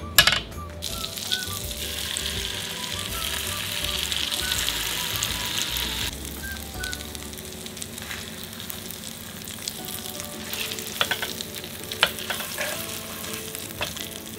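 French toast frying: egg-and-milk-soaked bread sizzling in melted butter in a rectangular egg pan over low heat. The sizzle is louder for a few seconds early on, with a few sharp clicks near the start and later.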